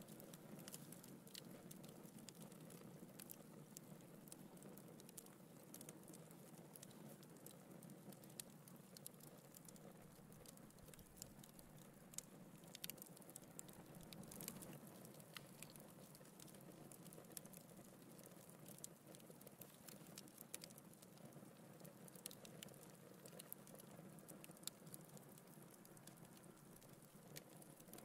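Wood logs burning in a fireplace, crackling faintly: a soft steady hiss of flame with scattered small pops and snaps, a few sharper ones around the middle.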